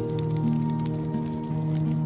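Wood fire crackling in a fireplace, with many small sharp pops, over steady held musical tones that change pitch every half second or so.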